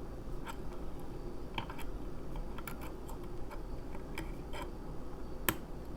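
Small metallic clicks and scrapes of a lock pick and tension wrench working the pin stack of a Protect security padlock, with one sharper click about five and a half seconds in.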